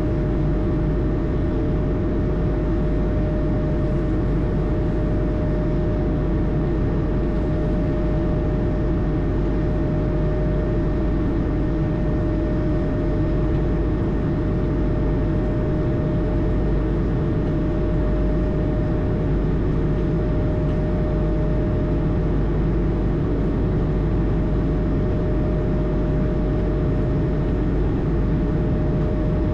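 Cockpit ambience of an Airbus A220 in flight: its Pratt & Whitney geared turbofan engines and the airflow make a steady roar with one constant whining tone, unchanging throughout.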